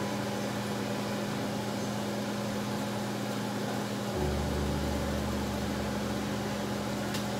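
Steady machine-like hum over a soft hiss, with a deeper hum joining about four seconds in.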